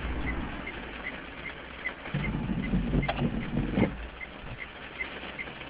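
A car's windscreen wiper making one sweep across a rain-spotted windscreen: a motor hum with a couple of clicks, from about two seconds in to nearly four. Underneath are a low steady rumble inside the car and a faint, even ticking about two and a half times a second.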